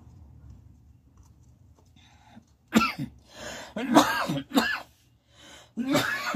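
A person coughing and clearing the throat in a run of short, loud bursts, about five of them, starting about three seconds in.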